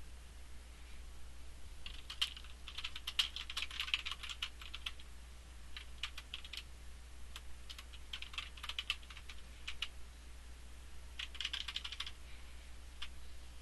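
Typing on a computer keyboard: several quick bursts of keystrokes with short pauses between them, starting about two seconds in.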